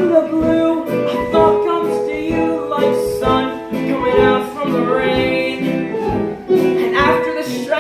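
Musical-theatre song music: singing over guitar accompaniment, a melody moving through held notes.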